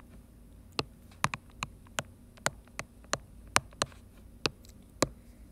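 Stylus tapping and writing on a tablet's glass screen: about a dozen sharp taps at irregular intervals.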